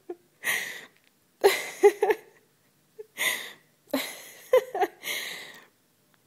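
A woman's breathy, stifled laughter in about six short bursts.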